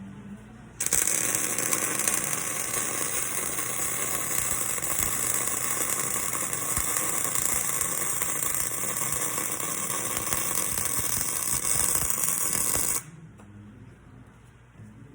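Electric arc welding: a steady, loud crackling sizzle of the arc as a bead is laid, starting about a second in and cutting off suddenly when the arc is broken near the end.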